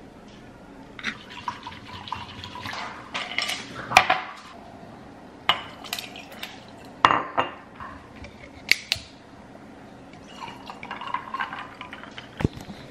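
Drink mixing: liquid poured into a glass over ice, with several sharp clinks of glass and a metal measuring cup, the loudest at about 4, 7 and 9 seconds in. Near the end, sparkling water is poured from a bottle into the glass.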